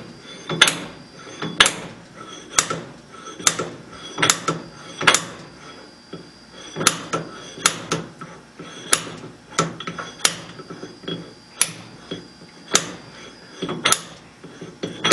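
Brass lathe mandrel worked back and forth like a slide hammer, giving sharp metal-on-metal knocks with a short ring, about once a second, to jar a stainless-steel hot cap that is stuck tight on it.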